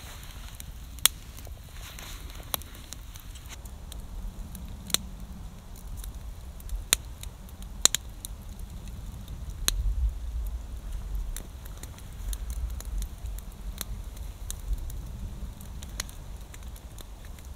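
Wood campfire crackling, with sharp irregular pops and snaps. A low rumble comes and goes from about ten seconds in.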